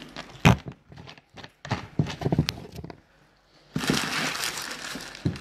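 A few sharp knocks of glasses and a bottle being handled and set down on a tabletop, then a steady hiss for about a second and a half near the end.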